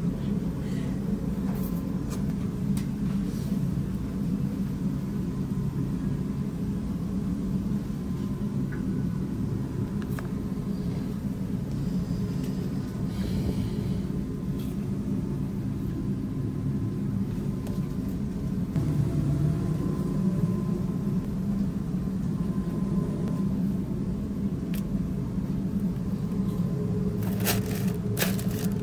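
Steady low rumble of commercial kitchen equipment running, with occasional light clicks and knocks as food is handled and packed. A short clatter of handling comes near the end.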